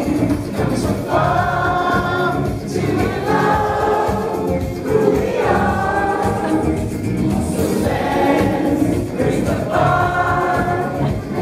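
Loud song with many voices singing together in chorus over a steady beat, sung in phrases of a couple of seconds each.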